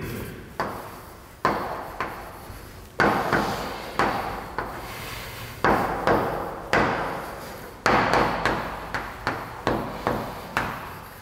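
Chalk writing on a blackboard: a string of sharp taps and short scratchy strokes at an irregular pace, each tap dying away briefly.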